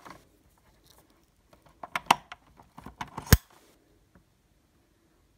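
RJ45 Ethernet plug being handled and pushed into a BT Smart Hub router's Gigabit Ethernet port: a few small plastic clicks about two seconds in, then a sharper click a little after three seconds as the plug latches.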